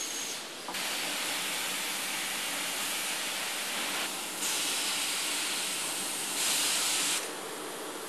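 Hissing of escaping air or steam from machinery, steady but stepping louder about a second in and again about halfway, and loudest for a moment near the end.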